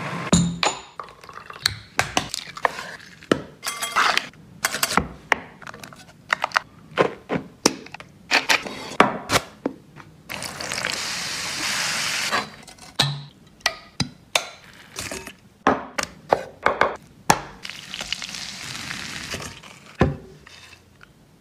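Food-preparation sounds: a run of short knocks, taps and clinks of utensils, bowls and food being handled, with two stretches of steady hiss of about two seconds each, one about halfway through and one near the end.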